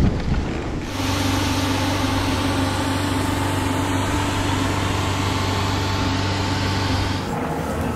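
About a second in, the rush of a snowboard sliding through snow with wind on the microphone cuts to a steady engine hum with several held tones: a rescue helicopter hovering. The hum eases near the end.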